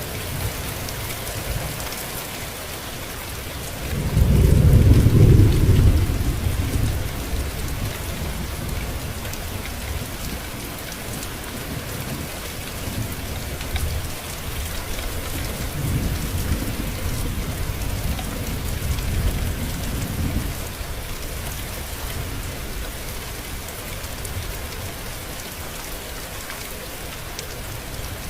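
Steady rain with two rolls of thunder: the loudest about four seconds in, lasting about two seconds, and a weaker, longer rumble in the second half.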